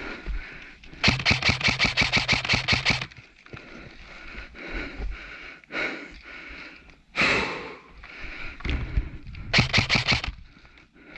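Airsoft rifle firing in rapid bursts: a string of about two seconds starting about a second in, and a shorter one near the end. A short rush of noise comes between them.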